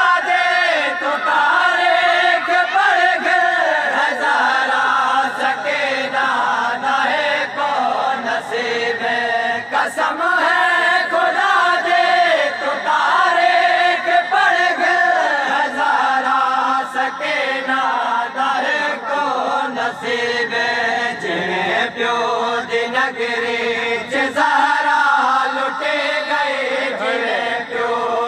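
Noha, a Shia mourning lament, chanted by a male reciter through a microphone, with a crowd of male mourners chanting along in long sung lines.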